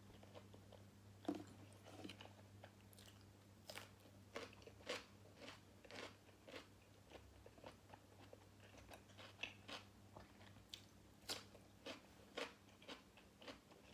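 Close-up chewing of crunchy food, a rapid series of sharp, wet crunches and bites, one or two a second. The food is grilled pork balls eaten with crisp vegetables.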